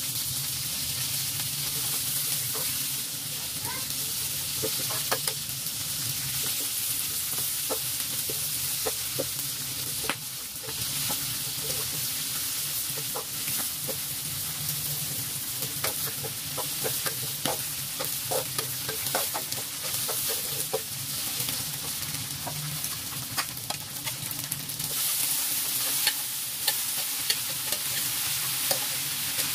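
Stir-frying in a metal wok: a steady sizzle of frying greens and aromatics, with a spatula repeatedly scraping and clicking against the wok. The hiss grows brighter near the end.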